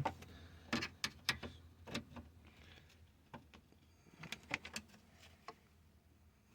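Light, irregular clicks and taps of hands and a tool working at a steering column, trying to free a stuck part near the turn signal module.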